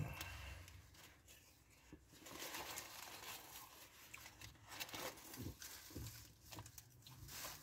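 Faint rustling of a food wrapper being handled, in soft uneven patches with a few light knocks.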